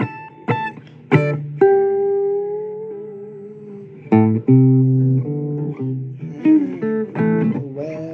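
Guitar playing an instrumental blues passage: a few sharply picked single notes, one left ringing and slowly fading, then from about four seconds in a louder run of picked notes over deep bass notes.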